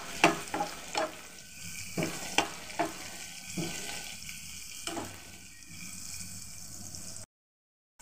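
Sliced onions sizzling in hot oil in a pan, with a spatula striking and scraping the pan several times in the first three seconds and a few more times after. The sound cuts off suddenly near the end.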